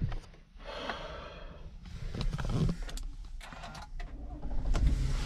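Small clicks and handling noises inside a Toyota SUV's cabin. Near the end the push-button ignition is pressed and the engine starts.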